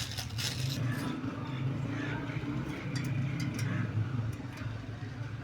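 A motor running steadily with a low, evenly pulsing hum, with scattered light clicks over it.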